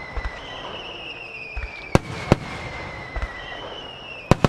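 Japanese starmine fireworks barrage. Low launch thumps are each followed by a whistle sliding down in pitch. Two sharp shell-burst cracks come about two seconds in and a quick pair near the end, over a steady crackling hiss.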